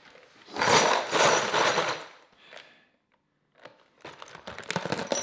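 Loose steel bolts rattling in a plastic tub as it is picked up and shaken: a dense rattle lasting about a second and a half near the start, then quick metallic clinks near the end.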